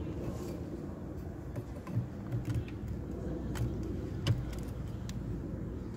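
Plastic clicks from a Kia Sedona's interior sliding-door handle as it is fitted back onto the door trim panel and pulled, about five sharp clicks over a steady low rumble.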